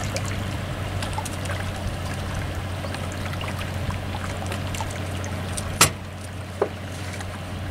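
Steady low hum and hiss of outdoor ambience by the water. A single sharp click comes about six seconds in, with a smaller knock just after, as a hand works a piece of metal hardware at the boat's transom.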